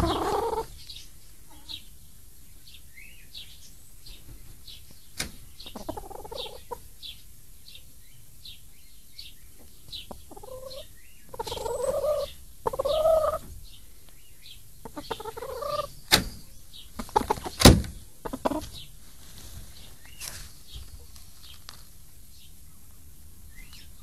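Chickens calling: steady short, high chirps throughout, with a few louder, lower hen calls in the middle stretch and a few sharp knocks.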